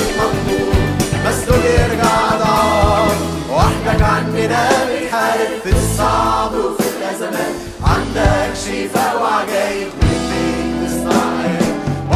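Arabic Christian praise-and-worship song: a group of singers, with a lead voice, sings over a band with a drum kit keeping a steady beat.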